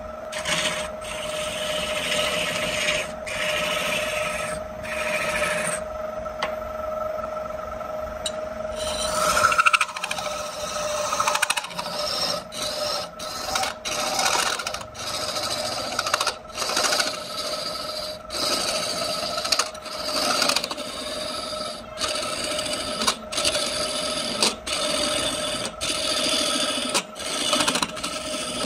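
A woodturning lathe runs with a steady hum while a tool or abrasive is worked against the spinning wood in repeated rasping strokes, roughly one a second.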